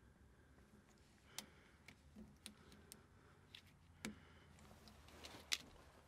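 Faint, scattered small clicks and ticks of a plastic fuel-injector wiring-harness connector and its wires being handled and fitted with gloved hands, about nine clicks spread over a few seconds.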